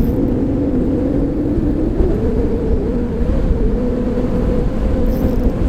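Strong wind buffeting the microphone, over a steady motor drone whose pitch wavers slightly.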